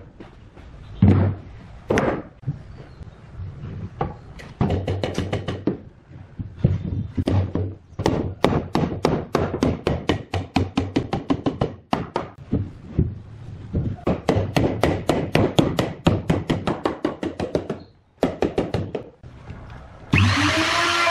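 Rubber mallet striking solid pine bed-frame pieces, driving the joints together in quick runs of several blows a second with short pauses. Near the end a Makita router's motor starts up and runs.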